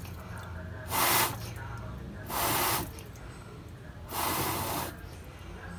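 Three hard puffs of breath blown into the radiator, about a second and a half apart, each a short hiss, to push the old water out through the drain faster.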